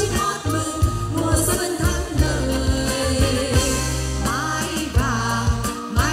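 Female vocal trio singing a song in Vietnamese over a live band with bass, drums and keyboard.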